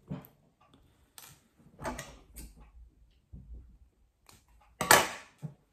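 Close handling sounds of monofilament fishing line and small tackle being worked by hand: a few short rustles and clicks, with a louder rustle near the end.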